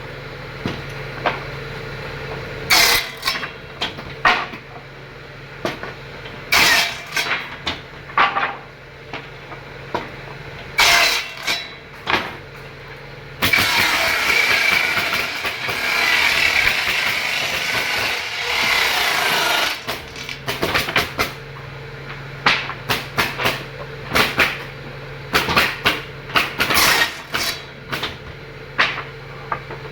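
Woodworking machinery running with a steady hum, broken by many sharp knocks and clatters of wood being handled and fed. For about six seconds in the middle, a loud continuous cutting noise with a squealing edge takes over, then the knocks resume.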